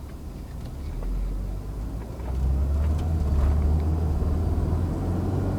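The 1.9-litre turbocharged four-cylinder engine of a 2001 Volvo S40 running while the car is driven. It is a low drone that gets louder about two seconds in and then holds. The engine has a misfire that the owner calls misfiring like crazy.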